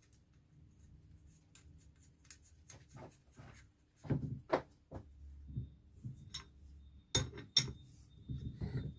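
Light metallic clicks and clinks of starter-motor parts and hand tools being handled, with two louder pairs of knocks about four and seven seconds in.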